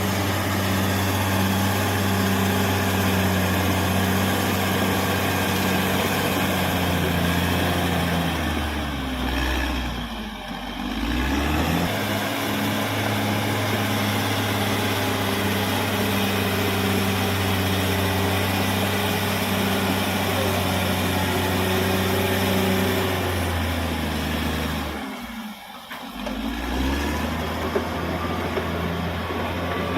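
Caterpillar D6R XL bulldozer's diesel engine running steadily at working revs. Twice, about ten seconds in and again some fifteen seconds later, the revs drop off briefly and then climb back up.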